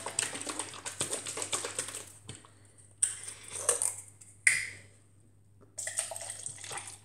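Liquid sloshing in a plastic juice bottle as it is shaken, then a sharp knock a little past halfway, and juice poured from the bottle into a plastic cup near the end.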